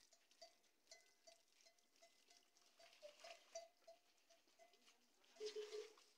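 Faint sounds of a camel herd at a watering trough: a thin tone repeating about three times a second, and a short, louder animal call near the end.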